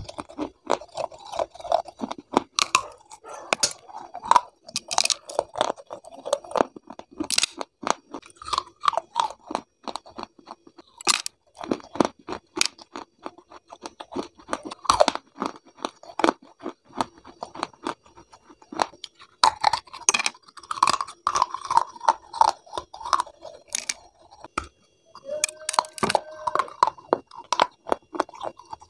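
Close-miked crunching and chewing of pieces of unglazed terracotta clay pot, with many sharp, irregular crunches as the brittle clay is bitten and ground between the teeth.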